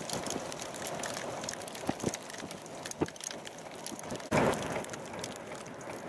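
Winter storm wind and icy precipitation: a steady rushing noise scattered with many sharp little ticks of sleet or snow pellets striking, and a louder rush about four seconds in.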